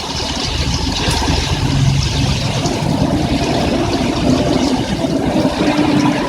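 Heavy rain falling steadily, with a motor vehicle's engine running close by on the road.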